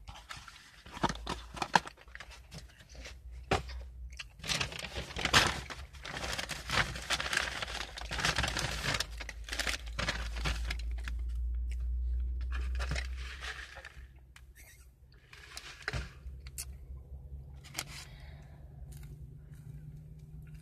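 Paper fast-food packaging being handled: a few sharp crinkles and clicks at first, then about nine seconds of steady crinkling and tearing, then only occasional rustles.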